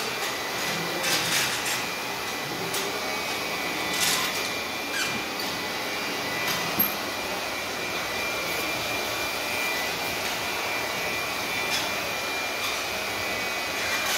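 Heavy three-drum steel floor roller being rolled over newly laid vinyl floor tiles, a steady rolling noise with a few clicks and squeaks from its frame, the sharpest click about seven seconds in.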